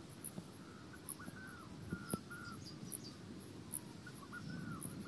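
Faint garden ambience: an insect chirping in short, very high pulses about every half second, with a few short, arching bird calls and some light taps underneath.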